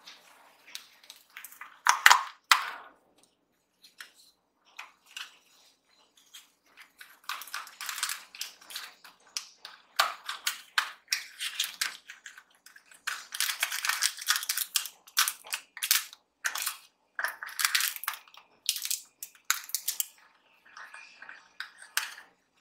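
Hands opening a small cardboard box: flaps pulled open and torn, with papery crackling and rustling in irregular bursts, loudest about two seconds in.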